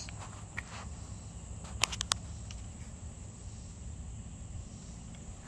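Handling noise from a cotton herringbone twill shirt being held and turned close to the microphone: a steady low rumble with three quick clicks about two seconds in. A faint steady high-pitched insect drone runs underneath.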